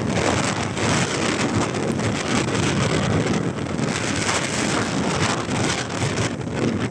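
Wind buffeting the phone's microphone on a moving motorcycle, a loud, rough rushing noise that flutters constantly, with road and traffic noise mixed in.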